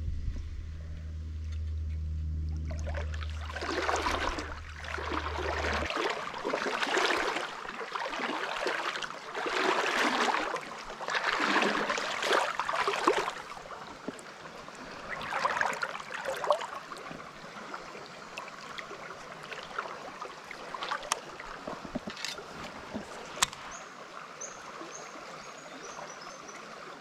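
Someone wading through a shallow, flowing creek, the water sloshing and splashing with each step for the first half or so. After that the creek runs more quietly, with a few sharp clicks. A low steady rumble sits under the first few seconds.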